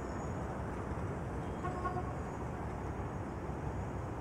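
City street ambience: a steady rumble of traffic, with a faint short tone about halfway through.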